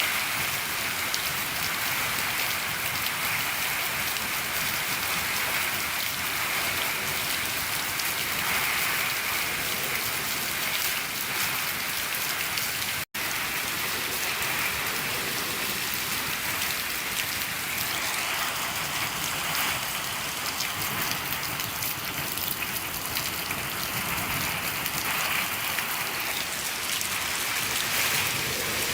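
Steady heavy rain falling on a shed roof, an even rushing patter, broken by a split-second gap of silence about thirteen seconds in.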